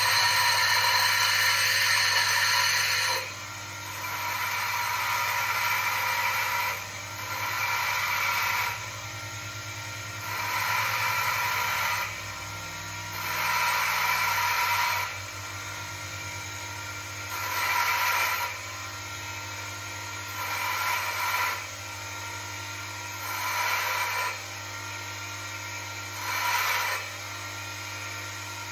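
Grinder grinding down a steel bolt in repeated bursts of about one to three seconds, each run of contact followed by a short pause, the bursts getting shorter towards the end.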